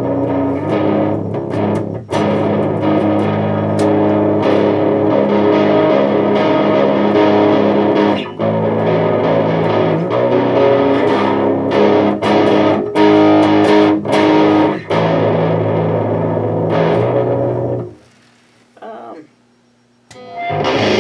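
Distorted electric guitar with Bare Knuckle Warpig pickups, tuned to drop A flat, played through an amp: heavy riffs with a lot of bass, heard through a camera microphone. The playing stops about 18 seconds in.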